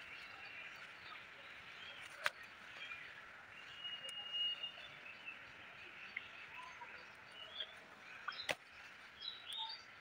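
Wild birds chirping and calling over a steady background hiss, with one held whistled note about four seconds in and a quick run of chirps near the end. Two sharp clicks, about two seconds in and again at eight and a half seconds, the first being the loudest sound.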